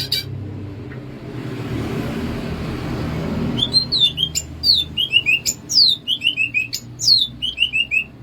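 Green leafbird (cucak ijo) singing. From about three and a half seconds in, it gives quick downward-sliding whistled notes with sharp clicks between them, repeated in short phrases. Before the song there is only a low steady rumble.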